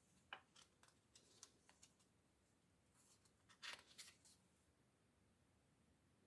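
Faint rustling and crinkling of sketchbook paper pages being handled and turned: a scatter of small rustles in the first two seconds, then a louder flurry about three and a half seconds in.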